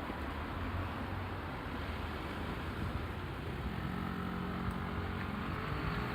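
Road traffic at an intersection: a steady wash of car engine and tyre noise. About four seconds in, a nearer vehicle's engine hum rises above it and holds steady.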